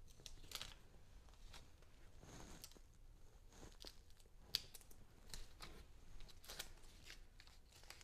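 Faint rustling and crinkling of paper cards and blue painter's tape being handled and pressed against a wall, with one sharp tap about four and a half seconds in.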